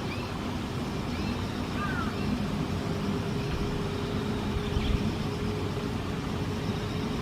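Steady low outdoor rumble, like distant traffic, with a few faint short chirps from swallows scattered through it. A faint steady hum joins about halfway through.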